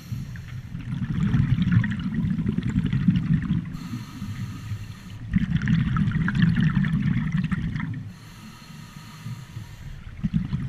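Scuba diver breathing through a regulator underwater. Long exhales of bubbles, bubbling and crackling, alternate with a shorter airy hiss from the regulator on each inhale, once about a third of the way in and again past two-thirds.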